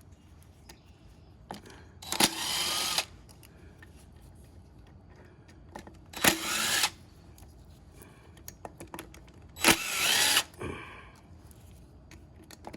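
Electric driver with a 4 mm hex bit spinning out the scooter cover's screws in three short bursts, each under a second, its motor pitch sweeping as it runs.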